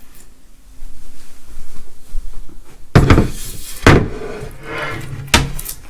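Objects being handled on a hard surface: rustling, then a loud clatter about three seconds in and a few sharp knocks after it.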